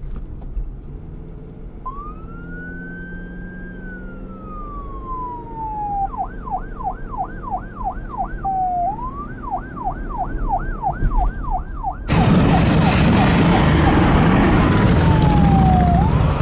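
Police siren sounding a slow wail that rises, holds and falls, then switching to a fast yelp, twice over. About twelve seconds in, loud traffic noise cuts in suddenly and drowns it, with the siren still faintly wailing underneath.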